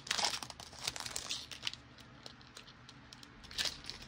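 A Panini Diamond Kings baseball card pack's wrapper crinkling and tearing as it is opened, a dense flurry of crackles in the first second and a half, then quieter, with another short crackle near the end.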